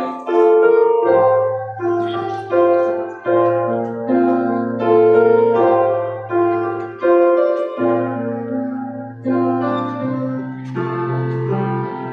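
Piano playing a slow instrumental interlude between sung verses: struck chords that ring and fade, a new one about every second, over held bass notes.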